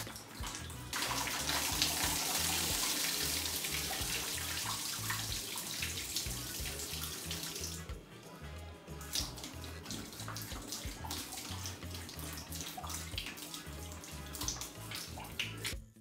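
Water pouring out of upturned plastic bottles into a sink, a steady splashing rush that drops off about eight seconds in, over background music with a low, steady beat.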